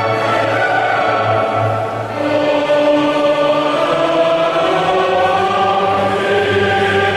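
A choir singing a slow hymn in long held notes, with a short break and a new phrase beginning about two seconds in.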